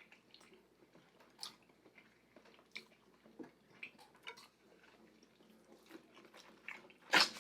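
Close-miked chewing and wet mouth sounds, with scattered soft, irregular clicks. A louder, sharper sound comes near the end.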